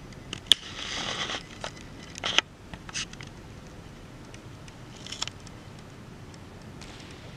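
Handling noise close to the microphone: a short rustle about a second in and a few sharp clicks, twice more near the middle, over a low steady room hum.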